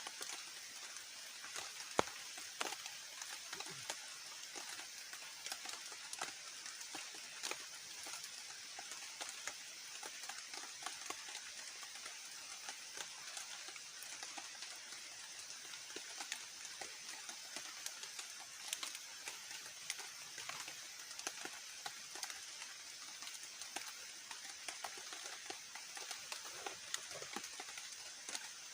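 Forest ambience of rain dripping and pattering, with insects droning steadily. A constant hiss carries many small ticks of drops, and one sharp click comes about two seconds in.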